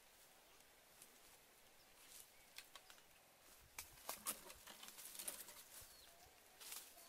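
Crackling and rustling of dry leaves, twigs and branches as someone walks barefoot through dry undergrowth and pushes past branches, sparse at first and much denser and louder from about halfway through.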